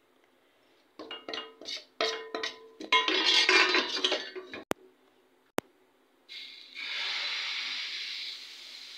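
Metal cookware clattering and ringing: a steel plate and a non-stick pan knocked and set down several times in quick succession. A steady hiss starts about six seconds in.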